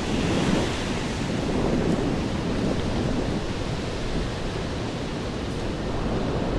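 Steady hiss of rain on a wet city street, with a low rumble underneath that swells and eases a little.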